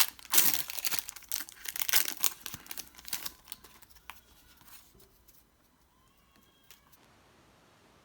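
Foil booster-pack wrapper crinkling and tearing open, loud and crackly for the first three seconds or so, then dying down to faint rustling of the cards.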